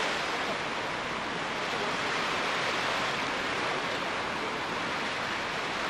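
Small waves washing in the shallows, a steady rushing noise that neither swells nor breaks off.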